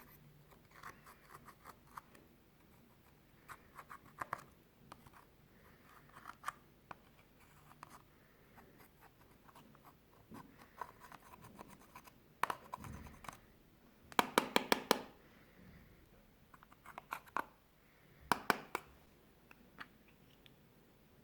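Clear slime with eyeshadow mixed in being worked by hand: sticky clicks and crackles in irregular clusters, with a quick run of louder pops about two-thirds of the way through.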